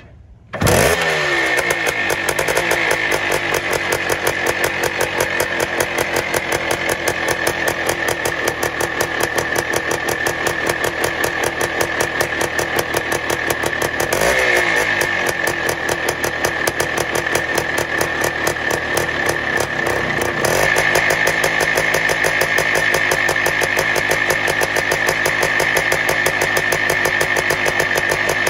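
Greeves single-cylinder two-stroke motorcycle engine catching from a kick start about a second in and revving up, then running with a fast, even beat. The throttle is blipped about halfway through, and the revs are held higher from about two-thirds of the way in.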